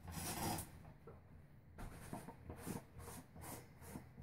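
Faint scratchy scraping, repeated every few tenths of a second: the plastic end cap of a PVC-pipe ball-mill jar being twisted loose by a gloved hand.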